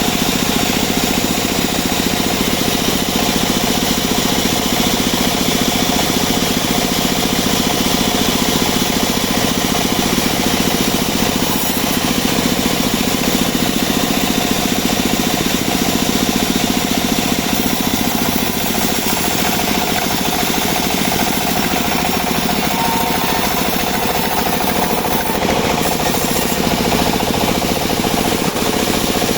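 Homemade engine-driven bandsaw sawmill running steadily, its engine and band blade sawing albasia wood without a break.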